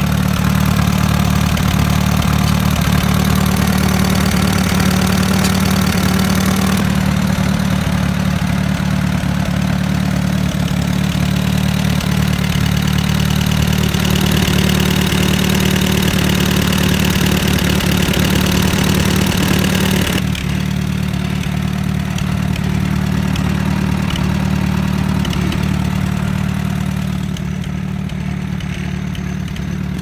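1942 Allis-Chalmers Model C tractor's four-cylinder engine idling steadily.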